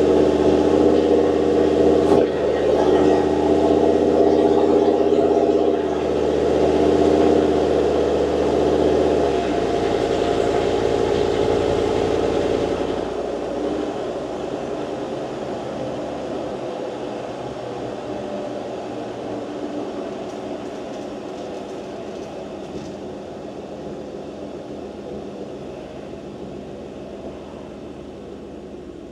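Humvee's 6.2 L LS3 V8 with a hot cam, heard from inside the cab while driving: a steady engine drone under load that eases off about nine seconds in, then fades gradually as the truck slows toward an intersection.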